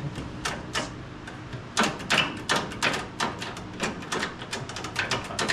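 Quick, irregular clicks and knocks of hands and tools working on a freshly installed 1939 Ford transmission, several a second, loudest about two seconds in.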